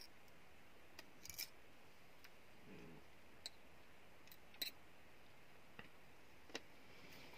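About half a dozen faint, sharp clicks and ticks, spread unevenly over otherwise near-silent room tone: a thin utensil tapping against a glass jar as algae is pushed down into seawater.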